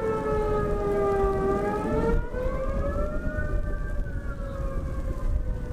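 Outdoor tornado warning siren wailing, its pitch sliding slowly down, back up, and down again, over a steady low rumble.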